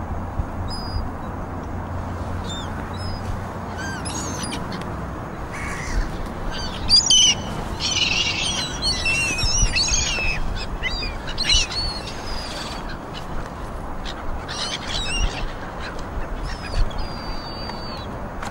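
Wind blowing over perforated horticultural fleece laid on a field, a steady rustling hiss as the cloth ripples, with birds chirping and calling over it, busiest about halfway through.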